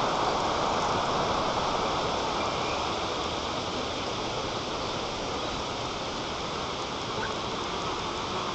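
Strong wind rushing through the treetop around the nest, a steady hiss that eases a little as it goes on.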